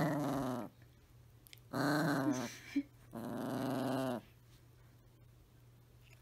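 Small Chihuahua-type dog giving drawn-out, wavering growls three times while its belly is rubbed, a playful, contented grumble rather than a warning.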